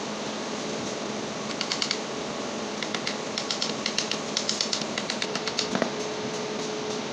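Quick runs of light metallic clicks and taps as donkey water pump parts, the bearing housing and its bolted cover, are handled and fitted by hand, several clicks a second in bursts. A steady fan-like hum runs underneath.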